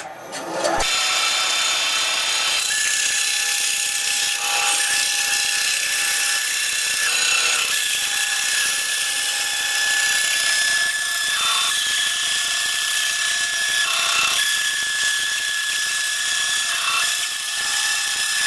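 Bandsaw cutting oak hardwood runners into 5/8-inch strips: a loud, steady cutting noise with a high, steady whine, dipping briefly every few seconds.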